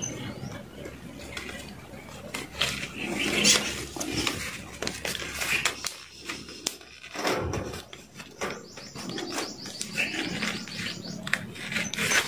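Irregular clicks and rustles of an electrical male plug and its wires being handled and fitted by gloved hands.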